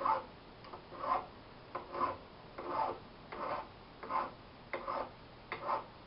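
Hand file stroking across the threaded end of a steel bicycle steer tube, chamfering the leading edge of the thread and clearing off burrs. It makes about eight even strokes, a little under one a second.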